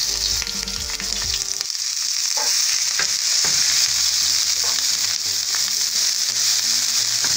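Chopped red onion sizzling in hot oil in a nonstick frying pan, stirred with a wooden spoon. The onion has just gone into the oil and is starting to fry down for browning.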